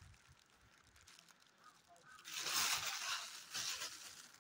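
Thin clear plastic bag crinkling as cups are taken out of it: one rustling burst about two seconds in, then a shorter one near the end.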